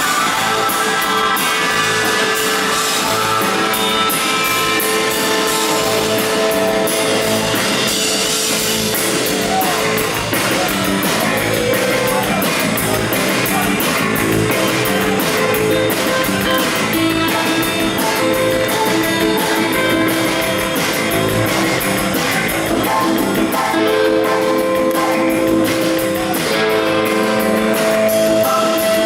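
Live rock band playing, with electric guitar and a drum kit keeping a steady beat.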